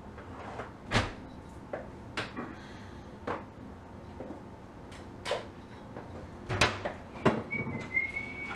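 Kitchen clatter during dishwashing: a series of irregular sharp knocks and clunks as dishes and utensils are handled and set down on the counter, with a short high squeak near the end.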